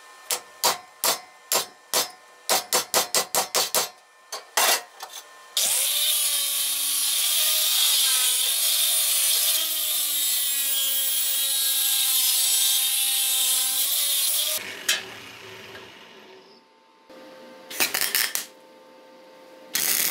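A run of sharp hammer blows on a steel piece held in a bench vise, quickening after about two seconds. Then an angle grinder grinds the steel for about nine seconds, its whine dipping and rising as it loads and unloads. Near the end come short bursts of MIG welding.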